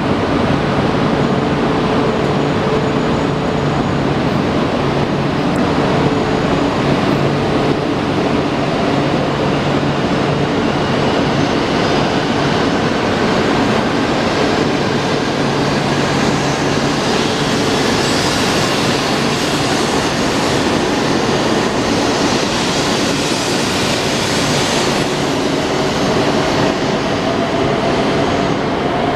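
Shinkansen E2 series electric train pulling out of a station, its running gear and traction motors making a steady mechanical noise. Near the end a motor whine rises in pitch as the train gathers speed.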